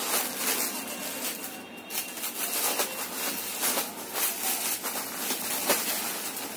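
Cloth rustling as cotton nighties are handled and unfolded, in a string of short swishes.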